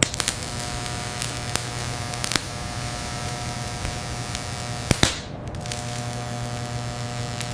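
Steady electrical hum and buzz of gold electrowinning equipment, with scattered sharp crackling clicks. A couple of louder clicks come about five seconds in, followed by a brief break in the hum.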